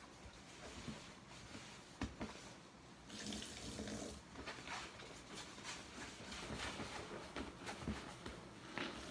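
Water running and splashing, louder from about three seconds in, with small clicks and knocks scattered through it.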